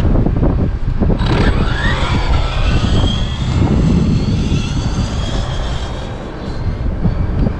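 Losi 1968 Ford F100 RC drag truck's electric motor whining up steeply in pitch as it launches about a second in and accelerates flat out, the high whine then holding and fading as the truck runs away. Wind rumbles on the microphone throughout.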